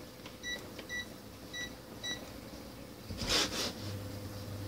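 Electric glass-top cooker's touch controls beeping four short times, then a low steady hum starting as the cooker switches on. Just before the hum there is a short rustling bump of handling.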